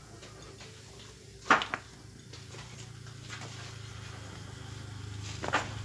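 Metal knocks and clinks of parts being handled at a partly dismantled motorcycle engine: one sharp knock about a second and a half in, a few fainter ones, and another sharp knock near the end, over a low steady hum.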